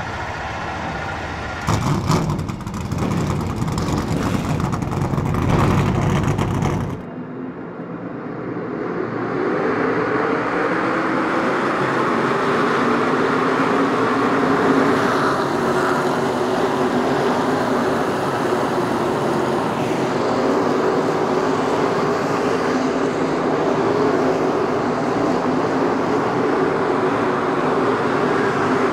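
NASCAR Cup Chevrolet V8 stock-car engines. For about the first seven seconds one engine is loud and close, then it cuts off suddenly. A steady drone of a whole field of cars running on the dirt track then builds over a couple of seconds and holds.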